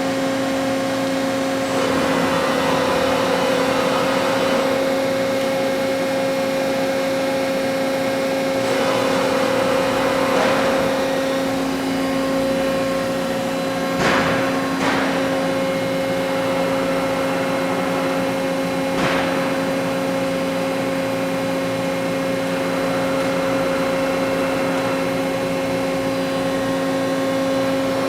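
Ingersoll 5-axis gantry CNC machining center running with a steady two-note hum. Twice it swells into a rushing noise for about two seconds, and a few sharp clicks come near the middle.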